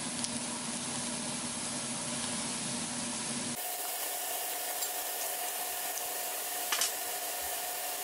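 Meat sizzling steadily on a tabletop Korean-barbecue grill pan, with a light click near the end.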